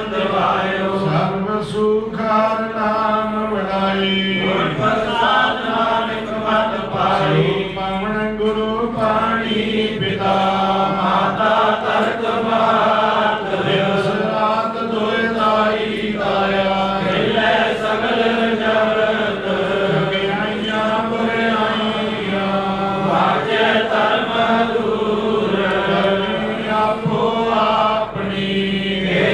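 Sikh kirtan: a man chanting a devotional hymn into a microphone, over the held notes of a harmonium.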